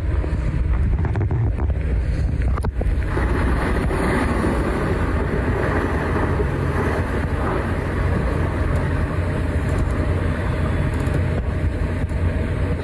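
Landslide rumbling: a steady low rumble of falling rock and debris. A rushing noise joins it and grows louder about three seconds in.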